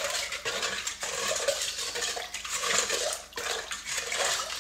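A spoon stirs salt-and-sugar brine round a stainless steel mixing bowl while the salt and sugar are still dissolving. It makes a continuous swishing and scraping, with a few sharp clicks of the spoon against the bowl.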